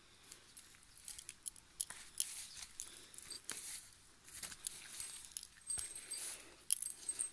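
Footsteps swishing and rustling through long meadow grass, an uneven run of rustles with many short light clicks.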